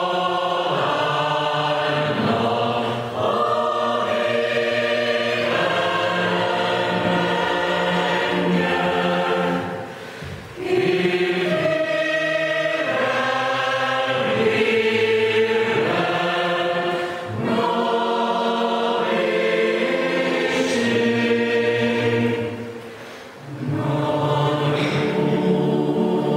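Mixed choir of men's and women's voices singing a Hungarian hymn in harmony, with sustained chords and short breaks between phrases, the clearest about ten and twenty-three seconds in.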